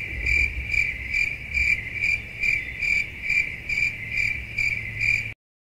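Cricket chirping sound effect edited in: a steady high chirp pulsing about three times a second, the comic 'crickets' cue for an awkward silence.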